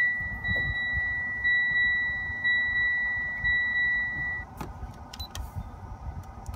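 Mitsubishi Lancer's electronic warning chime sounding as one steady high beep that stops about four and a half seconds in, followed by a couple of light clicks.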